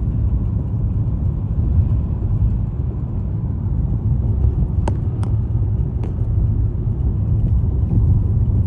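Steady low rumble of a car driving along a road, with a few short clicks a little past halfway through.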